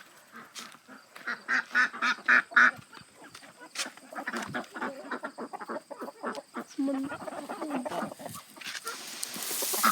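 Farmyard poultry calling. A quick run of about six calls comes a second and a half in, with softer scattered calls after it. Near the end a steady hiss rises.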